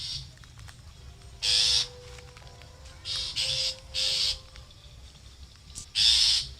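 Long-tailed shrikes giving about six short, harsh, scratchy calls at irregular intervals of roughly a second or more.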